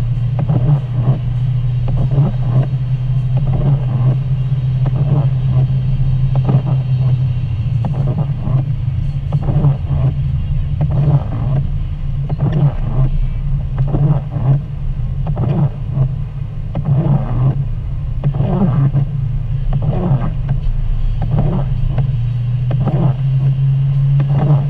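Car driving on a wet mountain highway, heard from inside the cabin: a steady low drone of engine and tyres. Short, frequent mid-pitched sounds come and go over it.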